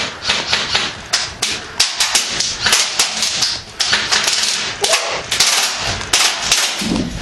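Airsoft guns firing in repeated rapid bursts of sharp clicking cracks, overlapping one another.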